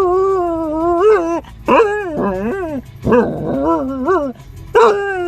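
A dog making a series of drawn-out, whining howls, "talking" in about four long calls whose pitch wavers up and down, separated by short breaths.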